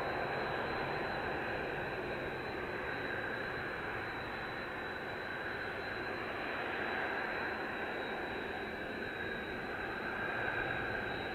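Several Kawasaki T-4 jet trainers taxiing at idle: their twin turbofan engines give a steady rushing hum with a high, constant whine over it.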